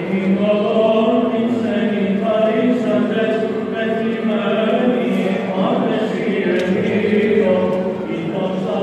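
Orthodox church chanting: a group of voices singing a hymn in unison, in long held notes that move slowly from one pitch to the next.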